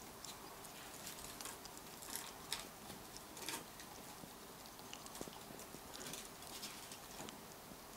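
A ferret licking strawberry pudding out of a small glass jar: faint, irregular small clicks and ticks of its tongue and teeth at the jar.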